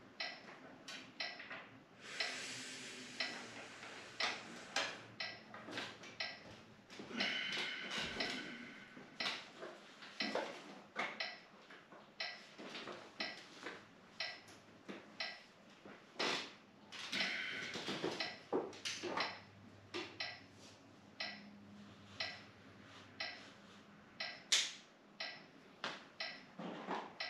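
Steady, regular ticking, like a clock or timer, running through the hold, with a few longer soft rushing sounds in between.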